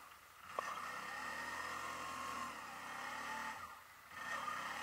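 Quad bike (ATV) engine running under throttle as it drives along a dirt trail, the engine note dipping briefly near the start and again near the end as the throttle eases off. A single sharp click comes about half a second in.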